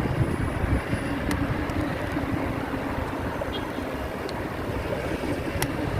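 Steady low rumble of road and traffic noise with wind on the microphone while riding, with a faint steady hum in the first half and a few light clicks.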